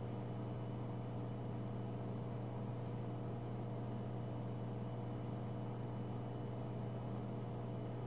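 Jenn-Air dishwasher's pump motor running with a steady low electric hum, late in a rinse-only cycle.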